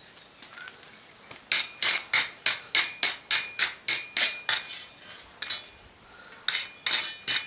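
Quick, regular scraping strokes of metal on a forged steel piece, about three a second, in two runs with a pause between. Some strokes carry a thin metallic ring.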